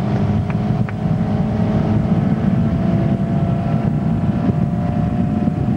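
Tow boat's engine running steadily at speed, pulling water skiers, with wind buffeting the microphone.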